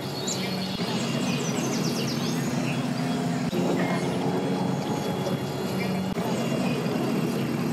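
An engine idling steadily, a low even hum, with a few faint high chirps or squeaks above it in the first couple of seconds.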